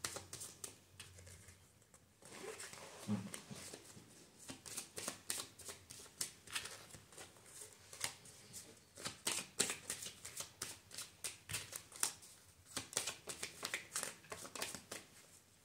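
A tarot deck being shuffled by hand: a quick run of card flicks and slaps, with short lulls about two seconds in and again near twelve and a half seconds.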